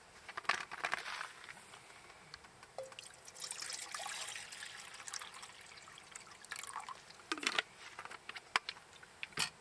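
Liquid pouring and trickling, with light clicks and knocks of handling throughout and a sharp click near the end.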